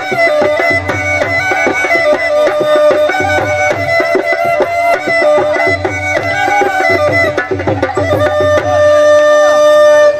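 Alghoza double flute playing a jhumar folk melody over a steady drone, with a drum beating out the rhythm. Near the end the melody settles onto one long held note.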